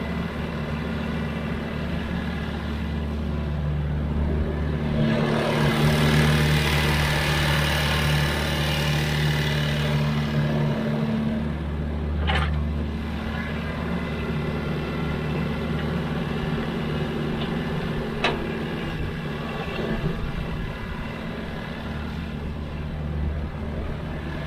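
Excavator's diesel engine running, growing louder with a rushing noise for about six seconds a few seconds in, then settling back. Two sharp knocks stand out, several seconds apart.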